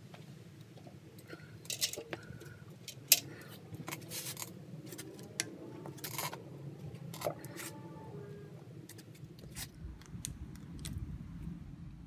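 Scattered clicks, taps and rustles from a handheld phone camera being moved and propped up to film.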